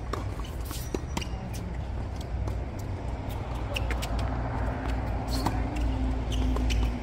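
Tennis rally on a hard court: sharp clicks of the ball coming off racket strings and bouncing on the court, over a steady low rumble. A low steady hum comes in about four seconds in.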